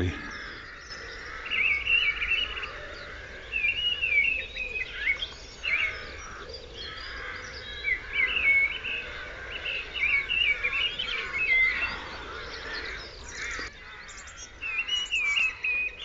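Mistle thrush singing from a tree: short, fluty phrases repeated with pauses between them. Other birds, among them rooks, jackdaws and blue tits, call in the background.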